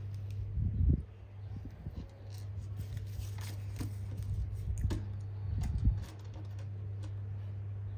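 Small plastic building bricks clicking and rattling as they are handled and pressed together, with a few sharper clicks among the softer rustling, over a steady low hum.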